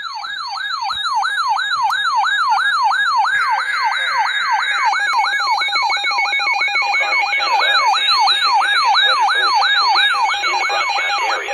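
Electronic alert siren: a pitched tone sweeping rapidly upward and dropping back, about three times a second, with steady and pulsing beep tones joining about halfway through, ahead of a weather-radio warning.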